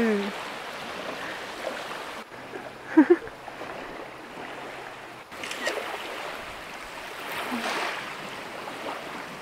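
Small waves washing on a sandy shore, a steady hiss of surf and wind. About three seconds in comes a short pitched voice sound, the loudest moment.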